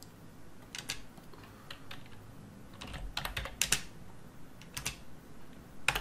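Computer keyboard typing and mouse clicks: short sharp clicks in irregular little clusters, thickest about halfway through, as commands are entered in CAD software.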